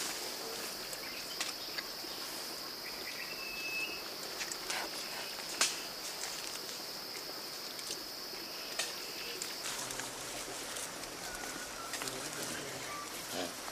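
Rainforest ambience: a steady, high insect drone that stops about ten seconds in, with scattered sharp snaps and a short whistled bird note about three seconds in.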